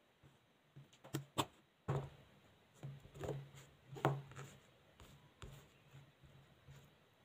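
Fingers handling slices of tomato on a plastic cutting board: a scattered run of light taps and rubs, the sharpest a little after one, two and four seconds in.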